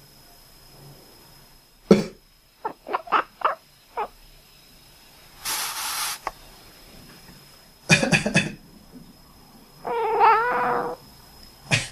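A person coughs, and a domestic cat answers with a quick run of four or five short, duck-like quacking chirps. More coughs follow, then one longer drawn-out quacking call from the cat.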